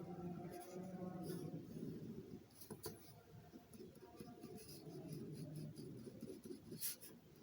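Faint scratching of writing while a diagram is drawn by hand, with two sharp clicks about three seconds and seven seconds in.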